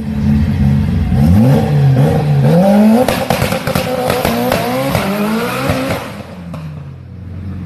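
A sports sedan's engine revving hard as the car accelerates away, its pitch climbing and dropping back several times through gear changes, with a few sharp cracks in the middle; it fades after about six seconds as the car gets farther off.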